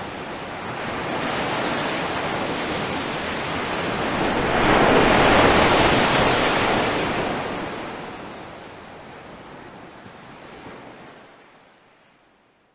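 Ocean surf breaking, a rushing wash of water that swells to its loudest about five seconds in, then slowly fades away near the end.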